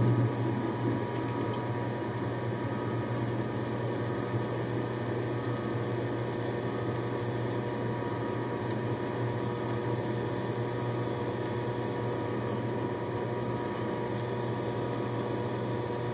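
Drill press motor running with a steady, even low hum while the spinning bit is fed into a pre-spotted hole in an aluminium plate.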